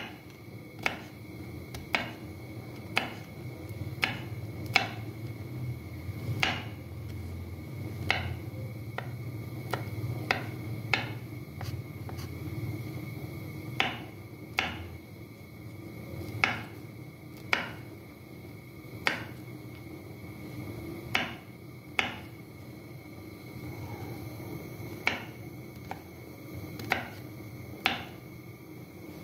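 Chef's knife chopping almonds and pistachios on a wooden cutting board: sharp knocks of the blade on the board, roughly one a second and unevenly spaced, over a steady hum.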